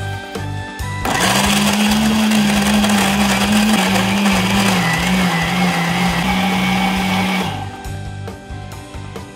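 Countertop blender motor running, puréeing chunks of apple, onion and carrot in dashi broth; it starts suddenly about a second in, its hum sags slightly in pitch midway, and it stops after about six seconds.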